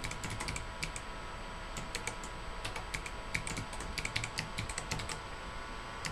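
Keystrokes on a computer keyboard, quick taps in irregular runs and pauses, over a faint steady hum.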